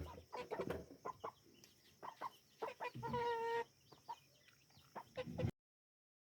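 A bird's short, choppy calls, with one longer held call about three seconds in. The sound cuts off abruptly about five and a half seconds in.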